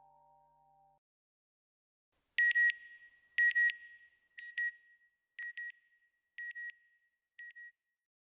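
Soft music fades out within the first second. After a short pause come high electronic beeps, a quick double beep about once a second, six times, growing fainter.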